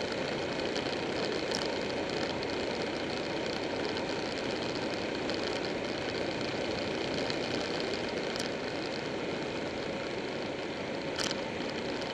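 Buell 1125R's V-twin engine running steadily under way, mixed with rushing wind. A brief sharp click near the end.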